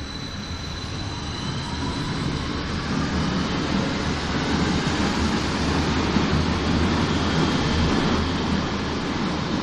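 Berlin U-Bahn HK-series train pulling out of the station and picking up speed, a rising electric whine from its drive over a rumble of wheels on rails. The rumble grows steadily louder as the cars run past.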